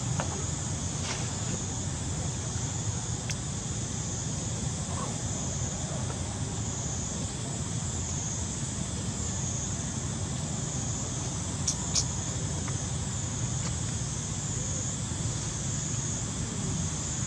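Outdoor ambience: a steady, high insect chorus that swells and fades gently, over a low steady rumble, with two sharp clicks close together about twelve seconds in.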